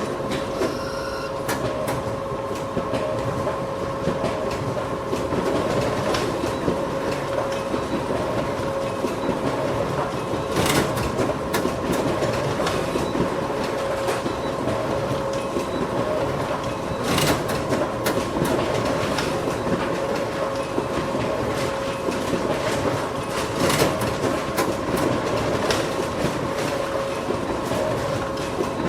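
Photocopier running continuously: a steady whirring hum with two held tones over a rattling mechanical hiss, punctuated by a sharp click about every six and a half seconds.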